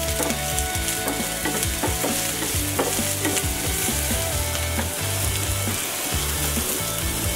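Chopped onion sizzling in hot oil in a non-stick frying pan, stirred with a wooden spatula that scrapes across the pan, as the onion fries toward light brown.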